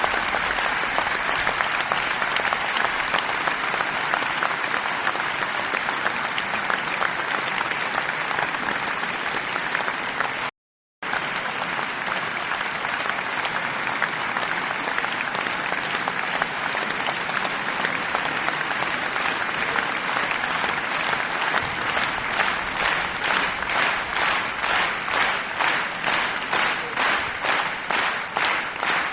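A crowd of people applauding: dense, continuous clapping that cuts out for a split second about ten seconds in. In the last third it falls into steady rhythmic unison clapping, about two to three claps a second.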